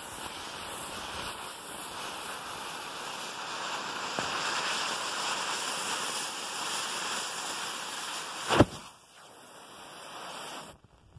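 A steady hiss while the balloon slowly deflates, then one sudden, sharp poof about eight and a half seconds in as the Pyrodex muzzle-loading powder inside the balloon ignites in a fireball.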